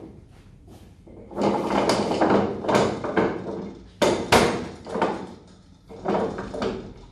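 Spanner and clamp hardware on an Amiad Sigma Pro filter's lid being worked loose: a run of scraping rattles, two sharp knocks about four seconds in, then a few more clunks and scrapes.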